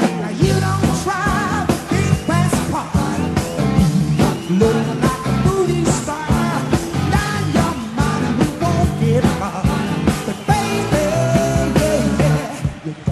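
Live rock and roll band playing: electric guitar, bass guitar, drums and saxophone, with a steady beat.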